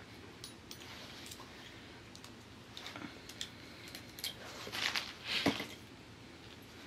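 Scattered light clicks and rattles of crimping pliers, crimp sleeves and heavy leader line being handled, busiest about four to five and a half seconds in.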